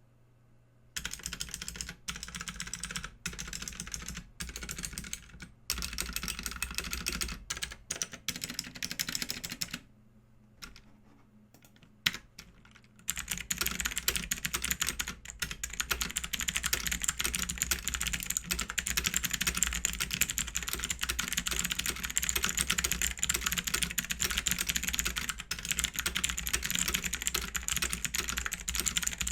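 BAJEAL K100 mechanical keyboard with clicky switches being typed on, with no desk mat under it. It starts with short bursts and pauses, then settles into continuous fast typing after about 13 seconds.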